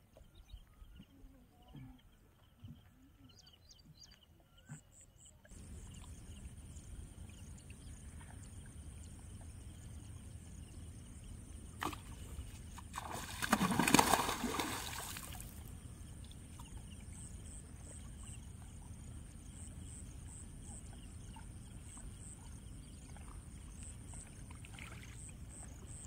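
A big hooked rohu thrashing and splashing at the water surface for about two seconds midway through, the loudest sound, with a single sharp click a second or so before. Steady low background noise runs around it.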